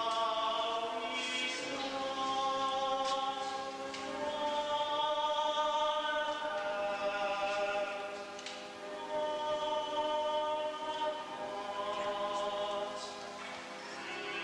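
Choir singing a slow hymn in long, held notes.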